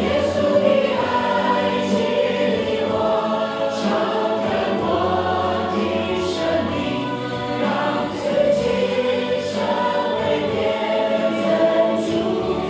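Music: a group of women singing together.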